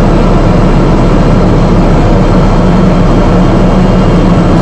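Single-engine propeller aircraft's engine and propeller running steadily, heard from inside the cockpit as a loud, even drone with a low hum underneath, during the approach to land.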